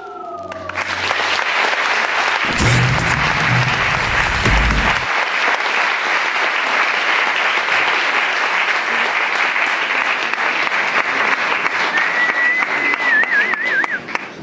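Audience applauding steadily, taking over as the music fades out at the start, with a short wavering whistle near the end.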